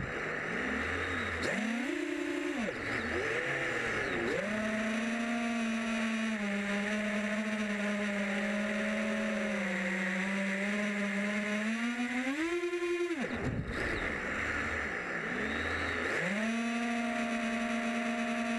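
FPV quadcopter's electric motors and propellers whining, the pitch rising and falling with the throttle. It dips several times in the first few seconds, runs steady, then surges sharply and cuts out about two-thirds of the way in before climbing back to a steady whine.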